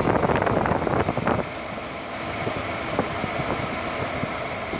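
Steady rush of air in the cabin of a 2016 Toyota Sienna minivan, with the climate control's A/C fan blowing. The first second and a half is louder, with rustling and a few light knocks, and there is a single tick about three seconds in.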